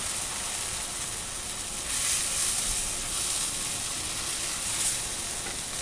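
Sauce-dipped corn tortilla frying in hot fat on a comal griddle, sizzling steadily.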